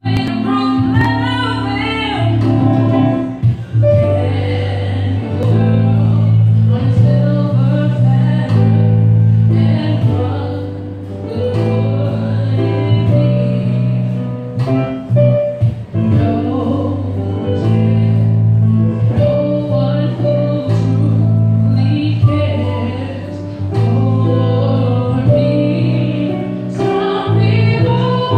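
Live neo-soul music: a woman singing over sustained electric keyboard chords and guitar, with a steady deep bass line under the held chords.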